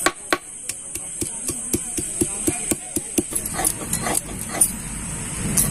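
Stone muller knocking on a stone grinding slab (sil-nora) as it crushes fresh ginger, quick knocks about four or five a second; after about three seconds it turns to rubbing the ginger back and forth into a paste, a scraping grind of stone on stone.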